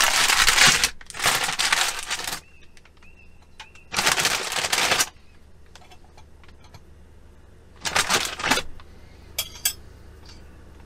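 Plastic bread-roll bag crinkling in four bursts as rolls are taken out, with a few light clicks near the end.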